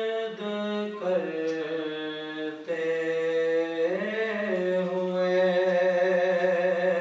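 A man's solo, unaccompanied melodic chanting in long held notes with ornamented turns, a few short breaks between phrases; about four seconds in he slides up into a final note held to the end.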